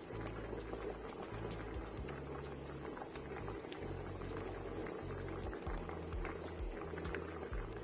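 A pot of vegetable soup at a rolling boil on a gas stove: steady bubbling with many small pops and crackles.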